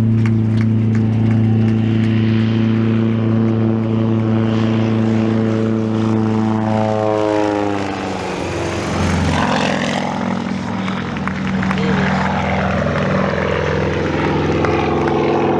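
Sukhoi Su-26M aerobatic plane's nine-cylinder Vedeneyev M-14P radial engine and propeller running at high power in a steady drone. About seven seconds in, the pitch falls as the plane passes close, and the sound carries on lower and rougher as it climbs away.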